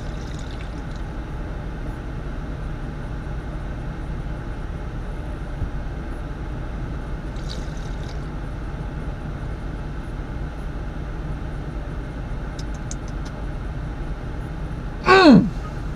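Steady low hum of an idling vehicle heard from inside its cabin. Near the end comes one short, loud vocal sound that slides sharply down in pitch, just after a long drink from a can.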